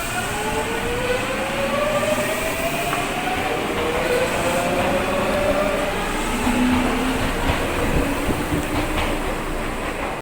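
Tokyu electric train pulling away, the whine of its traction motors rising steadily in pitch as it speeds up, over the rumble of wheels on rail, with a few clicks from wheels over rail joints later on.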